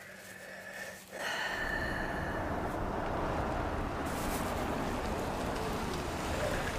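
A car running, a steady even vehicle noise that comes on suddenly about a second in and holds.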